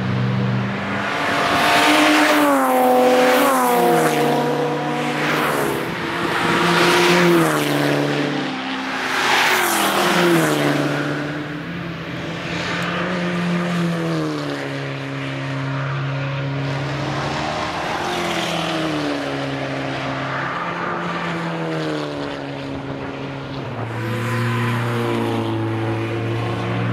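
Volkswagen Golf Mk5 GTI's turbocharged four-cylinder engine running hard on a race track as the car drives past. Its pitch rises and falls with throttle and drops in steps at gear changes, with several louder surges in the first ten seconds or so.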